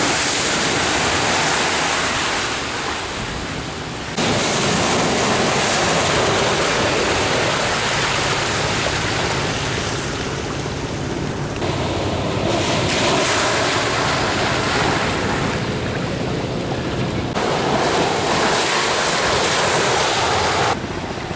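Heavy surf: large waves crashing against a seawall and seawater rushing and pouring over it, a loud continuous roar of breaking water. The sound changes abruptly several times as it moves between different stretches of crashing and pouring water.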